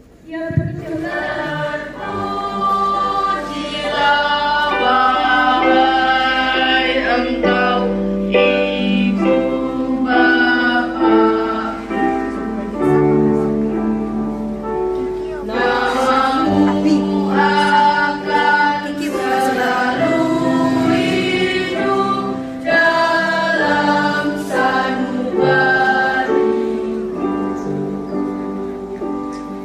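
A choir singing a song together, with long held notes.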